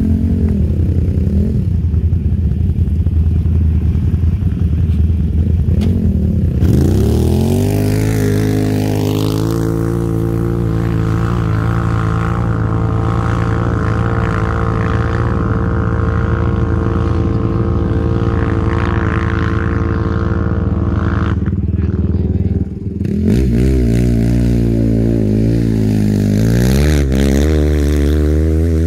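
Quad bike engines revving hard under load as they climb a steep sand dune. The pitch rises about seven seconds in and holds high and steady for roughly twelve seconds. It drops off briefly a little after twenty seconds, then revs up and down again near the end.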